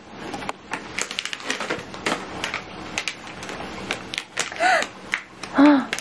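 A plastic candy bag and other wrapped items crinkling and rustling as they are pulled out of an Easter basket, in quick irregular crackles. A voice makes two short sounds near the end.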